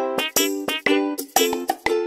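Background music: a quick, even run of plucked notes.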